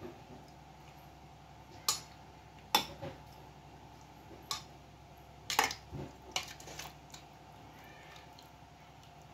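A metal ladle clinking against a stainless steel pot and a glass bowl as coconut-milk vegetable soup is ladled out: a handful of sharp knocks between about two and seven seconds in. A steady low hum runs underneath.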